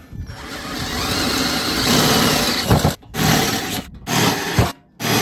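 Ryobi cordless drill with an 8.5 mm twist bit boring a hole through a steel section: one long run of about three seconds, then three short bursts of drilling.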